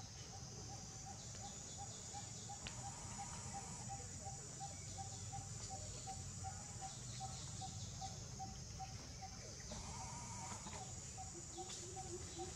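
Steady high-pitched buzz of insects, with a faint call repeating about three times a second and a few brief animal calls near the end.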